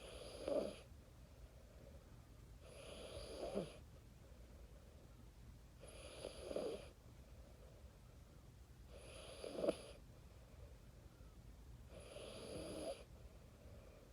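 A four-year-old child snoring in deep sleep: five snores about three seconds apart, each building up over about a second.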